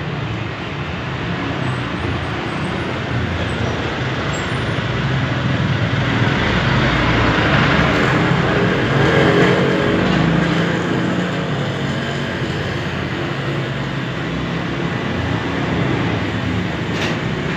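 Steady rushing noise of road traffic that swells about halfway through and eases off again, as if a vehicle is passing.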